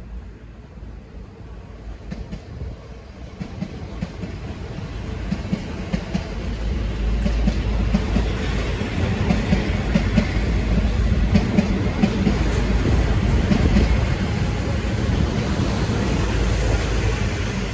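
V/Line N class diesel locomotive passing, growing louder as it nears over the first several seconds, its engine running with clicks of wheels over rail joints. No horn is sounded.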